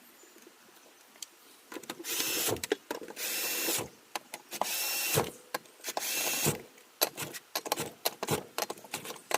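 A small power tool, such as a drill or driver, runs in four short bursts of under a second each, starting about two seconds in, with clicks and knocks of metal parts around them.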